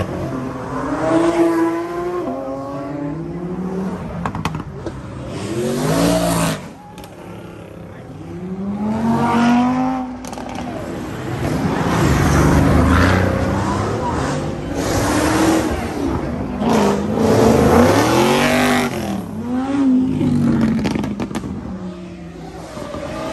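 Supercars accelerating hard past one after another. Each engine revs up in a rising pitch that drops back at each gear change. The loudest passes come about halfway through and again a little later.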